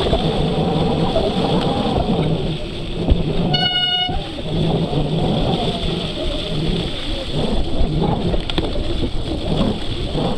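Riding noise of a mountain bike on a trail: a steady rush of wind and tyre noise on the camera microphone. About three and a half seconds in comes one short electronic beep, lasting about half a second.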